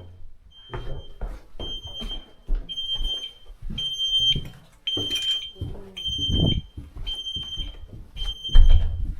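High-pitched electronic alarm beeping, about one half-second beep a second, with footsteps thudding underneath; the heaviest thud comes near the end.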